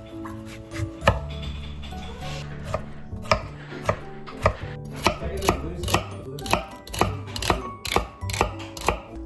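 Kitchen knife chopping a celery stalk on a wooden cutting board: sharp knocks of the blade hitting the board, starting about a second in and going on at roughly two a second.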